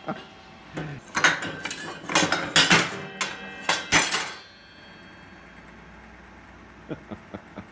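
Hammers hung as test weights on the rotating steel arm of a home-built sand muller clank and clink against the arm and each other as it spins, with several sharp metal strikes in the first four seconds. The clatter then stops, leaving a quiet steady hum.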